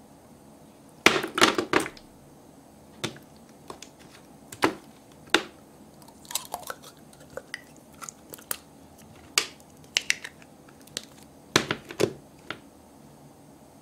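Soft slime squelching and popping as fingers knead it and push it into a small plastic toy barrel: irregular wet clicks and squishes, with a cluster of louder ones about a second in and again near the end.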